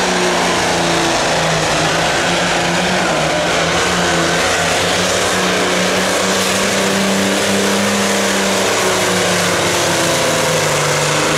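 John Deere 5010 classic super stock pulling tractor's diesel engine running hard under load as it drags the weight sled. The loud engine note holds steady, with small rises and dips in pitch.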